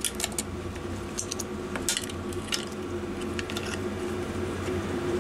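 Scattered small clicks and rustles of wires and metal terminal connectors being handled and pulled apart, over a steady low background hum.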